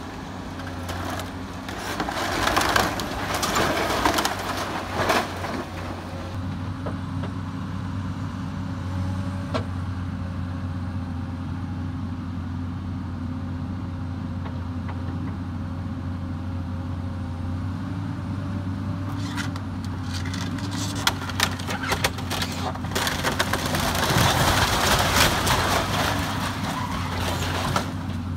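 Komatsu hydraulic excavator's diesel engine running steadily while its bucket crushes and tears apart a wood-frame building. The cracking and crunching of wood and siding comes in the first few seconds and again over roughly the last nine, loudest near the end as a roof section is pushed over.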